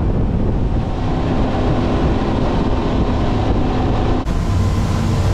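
Twin new Yamaha 425 hp V8 outboards running steadily with the boat up on plane, mid-way through their break-in run, with wind rushing past. The sound dips and changes abruptly about four seconds in, after which a steady low engine tone is stronger.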